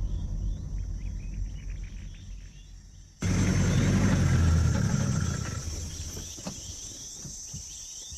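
Outdoor savanna ambience: a steady high insect chirring over a low rumble. About three seconds in, the sound cuts abruptly to a louder take of the same ambience, with a stronger low rumble, which then slowly fades.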